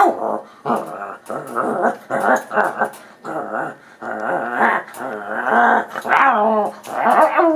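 Dog growling in quick, repeated bursts while scuffling with an African grey parrot. From about halfway through come longer whining calls that slide in pitch.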